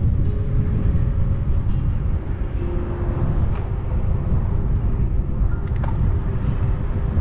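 Wind buffeting the microphone of a camera on a moving bicycle, heard as a steady low rumble, with a few light clicks about six seconds in.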